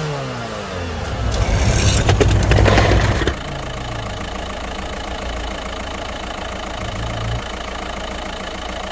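Straight-piped turbocharged engine revved hard in a loud burst with a hiss and crackle, cut off sharply a little over three seconds in, then idling steadily.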